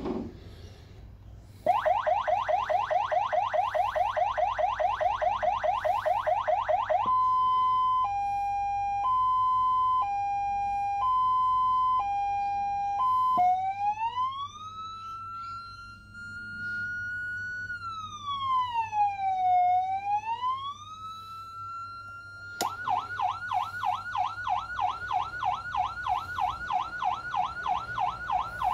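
CJB-400W 12-volt electronic siren amplifier sounding through its speaker as its tones are switched in turn, each change marked by a click. First a fast whoop repeated several times a second, then a two-tone hi-lo stepping between two notes about once a second, then a slow wail that rises, falls and rises again, and near the end a fast warbling yelp.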